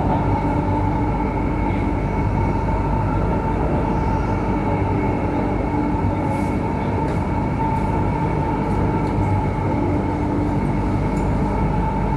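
Delhi Metro train running at speed on an elevated track, heard from inside the carriage: a steady rumble of wheels on rail with a constant high whine over it.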